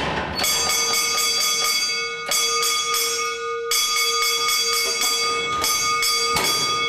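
Electric signal bell at a mine shaft hoist ringing, its clapper striking rapidly in several long rings with short breaks, as the cage starts its descent. It opens with a brief metallic clatter of the cage gate.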